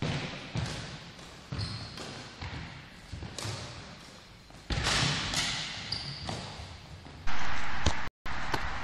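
Badminton rally in a sports hall: racket strikes on the shuttlecock and footsteps with short squeaks of sneakers on the wooden floor, each knock echoing in the hall. Near the end a louder, steady rush of noise cuts in and breaks off sharply.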